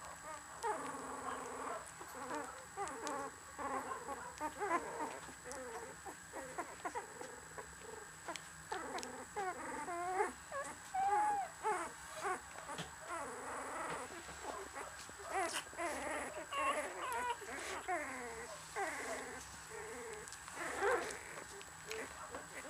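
Litter of 13-day-old Samoyed puppies whimpering and squeaking: many short, wavering high-pitched calls overlapping, thickest about halfway through and again towards the end.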